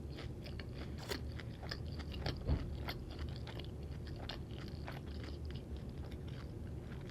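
A person chewing a mouthful of taco, with short crunching clicks scattered through it, over a faint steady low hum.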